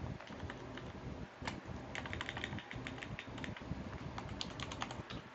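Computer keyboard typing: a few scattered keystroke clicks, then a quick run of keystrokes about two seconds in that lasts a second and a half, as a file name is typed.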